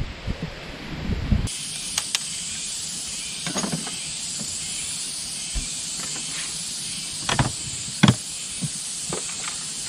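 A hard plastic storage case being handled, with scattered sharp clicks and knocks, the loudest about eight seconds in, over a steady hiss. Low wind rumble at the start.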